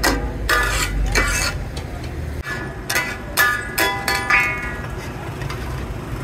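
Metal spatulas striking and scraping on a large steel tawa griddle, a string of irregular clanks, each ringing briefly. A low hum underneath drops away about halfway through.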